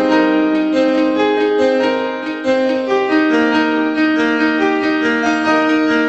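Background music: a keyboard melody of held, overlapping piano-like notes.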